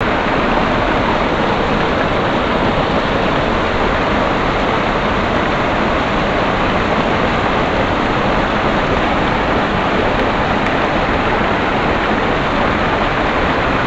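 Creek water running over rocks, a loud, steady, unbroken noise.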